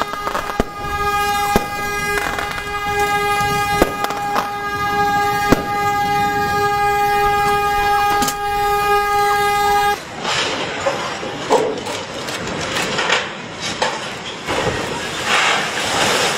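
A ship's horn sounding one long steady blast, with scattered clicks over it, cut off abruptly about ten seconds in. A loud noisy rush with irregular surges follows.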